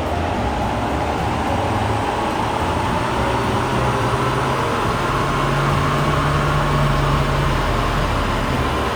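Toyota Revo Rocco's 2.4-litre four-cylinder turbodiesel running steadily under load. Its low drone swells and climbs slightly in pitch from about halfway in, then eases back near the end.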